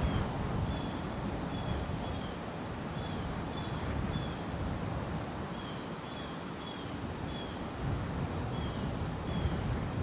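Wind blowing over the microphone and through the trees, with a short, high, slightly falling chirp from a small creature repeating a little more than once a second.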